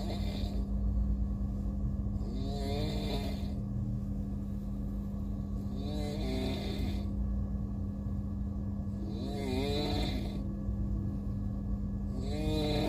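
A person snoring loudly and rhythmically, four snores about three and a half seconds apart, each wavering in pitch with a breathy hiss. Under it runs the steady rumble and hum of a moving train.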